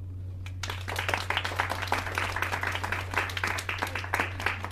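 Audience applauding, the clapping breaking out about half a second in at the end of the poem, over a steady low hum.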